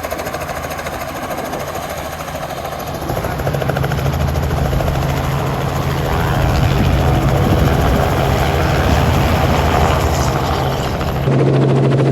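Helicopter running, its rotor and engine giving a steady low hum over a noisy rush that grows louder about three seconds in. The sound changes abruptly near the end.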